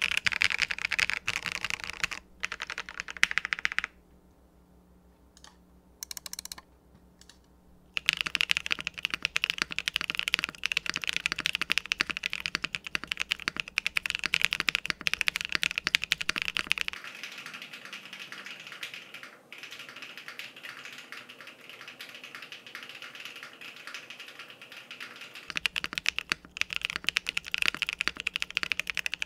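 Typing on a TKD Cycle 8 tenkeyless mechanical keyboard fitted with Epomaker Jade Blossom switches and PBTFans Ronin keycaps: rapid, continuous keystrokes. About four seconds in the typing stops for a few seconds, leaving only a handful of single keystrokes. After the middle comes a softer, quieter stretch of typing before it gets louder again near the end.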